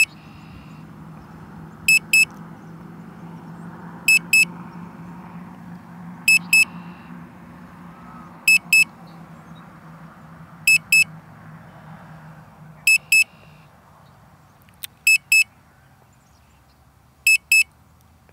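Drone remote controller's alert beeping in quick pairs of short, high beeps, about one pair every two seconds, sounding while the drone is on automatic return to home. A faint low hum runs underneath and fades about twelve seconds in.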